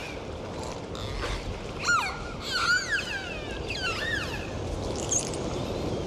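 Dolphins whistling underwater: several rising and falling whistles from about two seconds in, with a few clicks over a steady underwater hiss.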